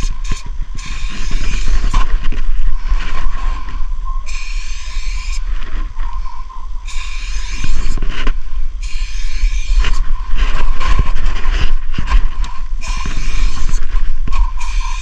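Aerosol spray paint can hissing in repeated bursts of one to two seconds as white paint is sprayed in long strokes, with short breaks between bursts. A steady low rumble runs underneath.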